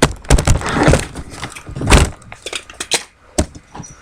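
A run of sharp knocks, clicks and rustling clatter, as of objects being handled and set down. The loudest noisy bursts come about half a second to a second in and again around two seconds.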